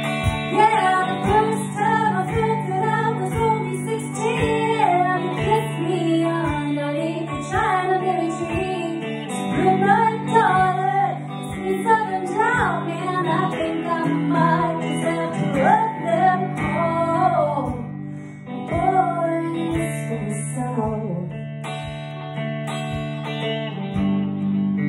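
Hollow-body electric guitar picked steadily, with a melody of bent, wavering notes over sustained low chords for most of the passage, then plainer chordal playing near the end.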